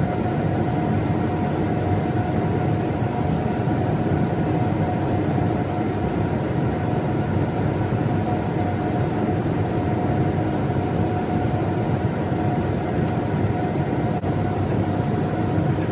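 Steady drone of running air-handling machinery in a fan room: a low rumble with a few constant humming tones over it, unchanging throughout.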